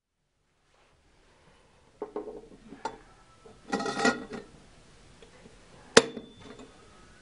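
Chrome metal cross rail tube and its clip being handled and fitted together on a tabletop: light metallic clinks and rattles start about two seconds in, with a busier cluster around the middle. About six seconds in comes one sharp metal click with a brief ring as the clip is pushed into the tube.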